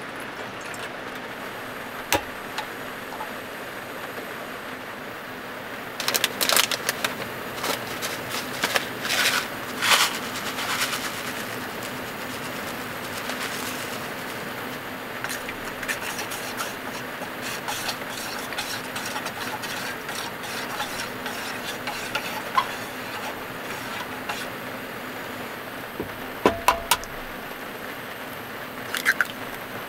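Steady hiss of heavy rain on a small car's roof together with a portable gas burner running. A plastic snack packet crinkles as it is torn open about six to eleven seconds in, and a few sharp taps near the end come from an egg being cracked.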